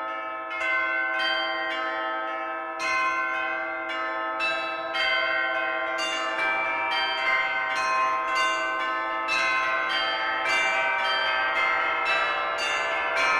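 Church bell ringing, struck about twice a second, each stroke ringing on into the next.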